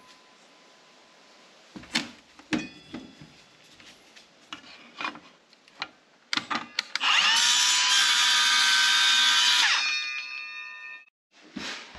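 A few knocks as the plank and saw are set up, then about seven seconds in a circular saw spins up, rising in pitch, and runs steadily for about three seconds cutting a vinyl floor plank. Near ten seconds it stops and its whine dies away.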